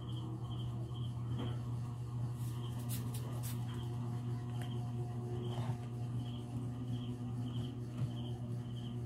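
A sheet of laminated paper being handled, then slid and rubbed into place on the punch plate of a comb binding machine, with a few soft rustles and clicks. A steady low hum runs underneath, with a faint high chirp repeating a few times a second.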